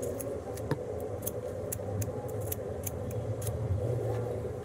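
A dozen or so light, irregular clicks and taps from tiling tools and tile pieces being handled, over a steady low hum.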